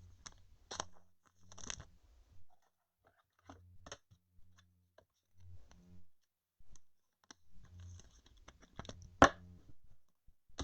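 Trading cards being handled: scattered short scratches, rustles and clicks of cards sliding and tapping together, with one sharp, louder click about nine seconds in.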